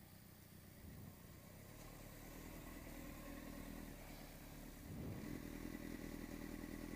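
Honda CBR600RR inline-four motorcycle engine running at low revs, growing louder as the bike comes closer.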